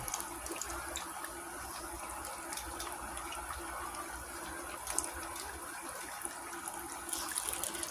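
Chicken frying in hot oil, a steady sizzle with a few faint pops, over a steady low hum.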